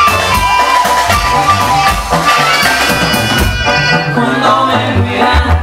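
Loud live norteño band music through a PA: a sustained reedy accordion melody over bass and drums.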